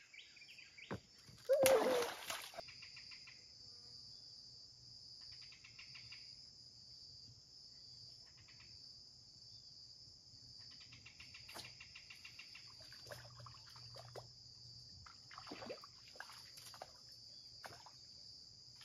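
Outdoor riverbank ambience: a steady, high insect drone, with bird chirps on and off. A brief, louder sound comes about two seconds in.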